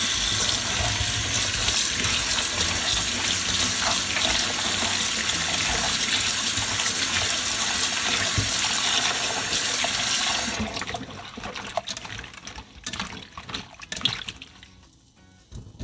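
Kitchen tap running in a steady stream into a stainless steel bowl of cut vegetables in a steel sink. It cuts off about ten seconds in, followed by quieter, uneven splashing as hands swish the vegetables in the bowl of water.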